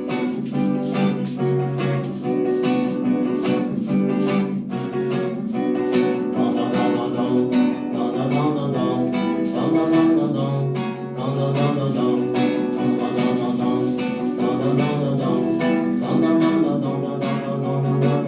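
Instrumental music: a strummed guitar over a steady dance beat, the introduction before the vocals come in.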